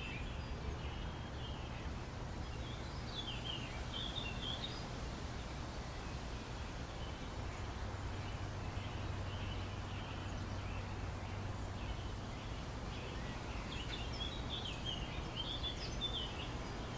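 Faint outdoor ambience: small birds chirping in two short spells over a steady low hum.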